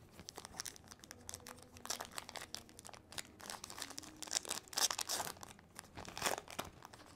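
Baseball card pack wrapper being torn open and crinkled by hand, in irregular crackles, loudest about four to five seconds in and again just after six seconds.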